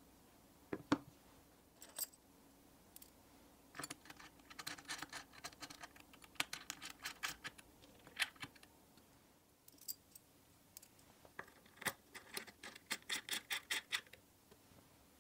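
A hex key turning a bolt in a slotted metal stop plate on a wooden knife-sharpening jig: two runs of rapid small metallic clicks and scrapes, one in the middle and one near the end, with a single sharper knock about a second in.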